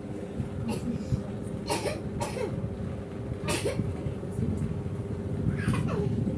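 A child coughing: about five short coughs spread across the few seconds, over a steady low rumble.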